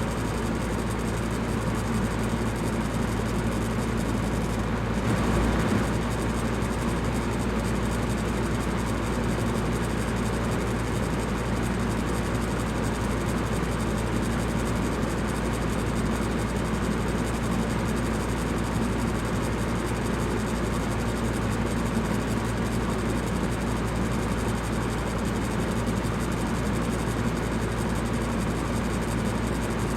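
Electric fan running steadily: an even rushing of air with a low hum underneath, swelling slightly about five seconds in.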